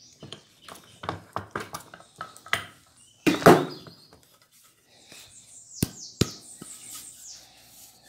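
Motorcycle roller chain clinking and rattling as it is unhooked and pulled off glued wooden boards, with a louder scraping rattle about three and a half seconds in. Then two sharp knocks of wood about a second and a half later.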